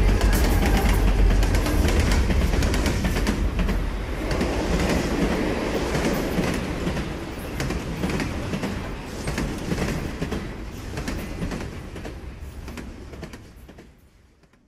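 Heavy low rumbling with a rapid clattering rhythm, fading gradually and dying away to silence near the end, like a large vehicle passing and receding.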